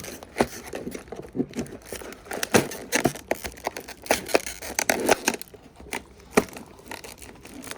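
Hand tools working at a door lock: irregular sharp clicks and knocks with scraping between them.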